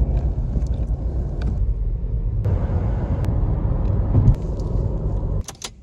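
Steady low rumble of road and engine noise inside a car's cabin while driving on a motorway. It cuts off suddenly near the end.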